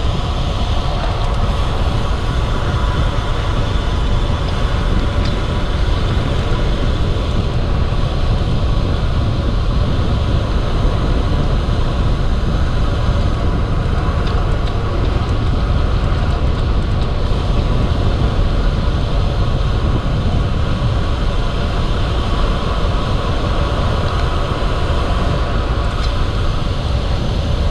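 Steady wind noise on the microphone of a camera riding on a moving road bike, with a constant low rumble.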